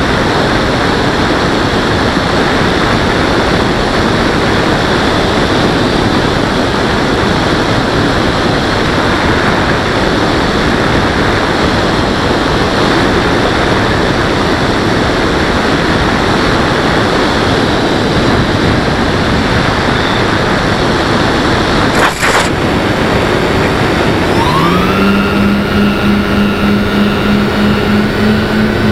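Loud, steady rush of wind and motor noise picked up by an FPV aircraft's onboard camera. About three-quarters of the way through a sharp click sounds, and soon after a motor tone rises in pitch and then holds nearly steady.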